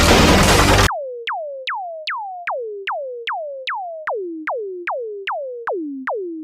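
A loud, dense noisy crash sound cuts off about a second in. It is followed by a run of synthesized 'zap' notes, each a click-started tone that drops sharply in pitch. They repeat about two and a half times a second, landing on different pitches like a little tune.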